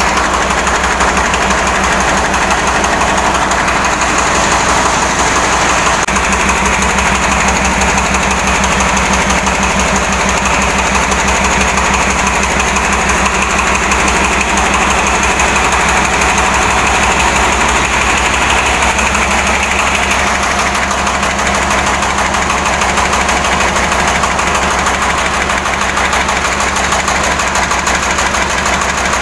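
Two-wheel hand tractor engine running steadily with a fast, even chugging, its note shifting slightly about six seconds in and again about twenty seconds in.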